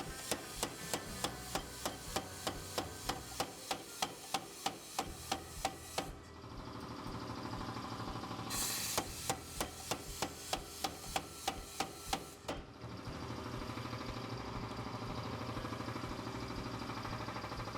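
Hammer strikes forging a W2 steel knife blank: two runs of evenly spaced blows, about two a second, each lasting a few seconds, stopping about halfway through. A steady hum runs under and after the blows.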